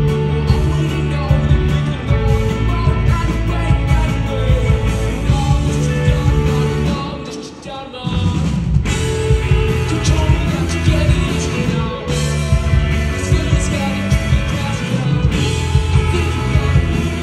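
Live rock band playing loud, with a singer over guitars, bass and drums. About seven seconds in, the music thins out and drops in level for about a second, then the full band comes back in.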